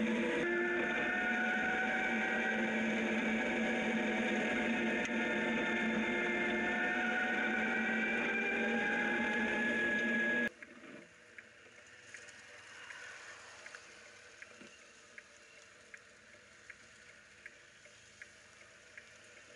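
Zero DSR electric motorcycle riding on gravel: the electric drive gives several steady whining tones that drift slowly up and down with speed, over the rush of tyres and wind. About ten seconds in it cuts off suddenly, leaving a quiet, regular ticking from the bike's flashing amber indicator.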